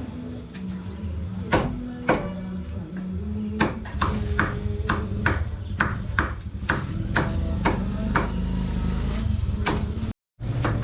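Butcher's cleaver chopping chicken on a wooden block: repeated sharp strikes, about two a second at their busiest, over a steady low hum.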